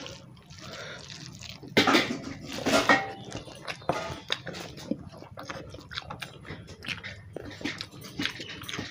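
Close-up eating by hand: wet squelches and clicks as fingers mix rice and fish curry on a steel plate, along with chewing. There are two louder spells about two and three seconds in, then a run of small irregular clicks.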